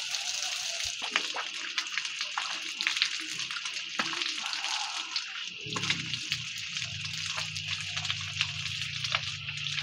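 Water running from a row of outdoor taps and splashing as several people wash their hands, arms and feet under them for ritual ablution, with small splashes and drips. About halfway through, a low steady hum joins in.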